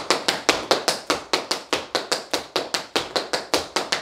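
Tap shoes striking a wooden floor in a fast, even run of taps, about six or seven a second: a string of shuffle steps.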